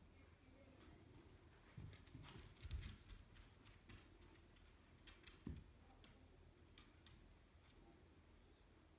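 Near silence with faint, scattered light clicks and jingles from a small dog moving about: claws on a tile floor and a collar tag. They cluster about two to three seconds in and again around five and a half seconds, then die away.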